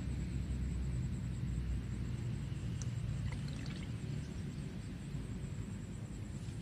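Steady low outdoor rumble, with a faint thin high whine running through it and a few faint short chirps about three seconds in.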